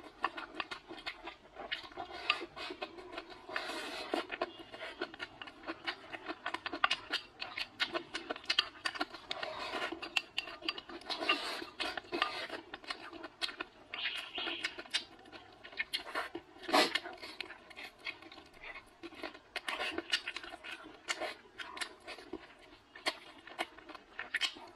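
Close-miked eating sounds: wooden chopsticks clicking and scraping against a ceramic bowl while rice and chicken are slurped and chewed. Many short, irregular clicks, with one louder knock about two-thirds of the way through.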